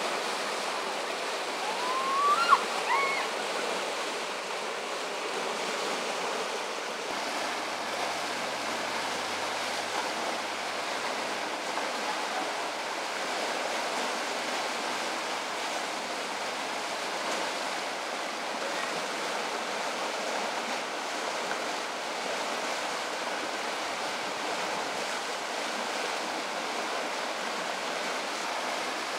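River water rushing steadily over shallow whitewater rapids. About two seconds in, a brief rising high-pitched call sounds over it.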